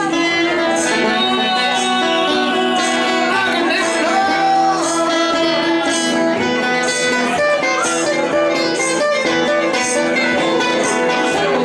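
Music: a song with guitar and a steady beat.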